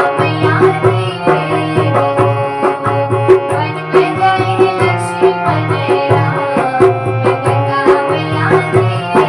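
Bhajan music: a tabla-led rhythm under a melodic instrumental line, playing at a steady beat with no vocals transcribed.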